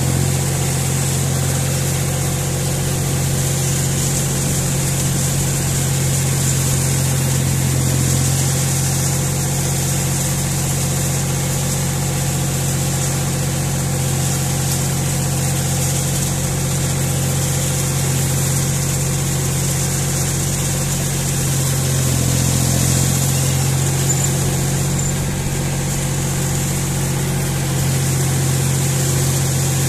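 John Deere 5045 tractor's diesel engine running steadily as the tractor drives at an even pace.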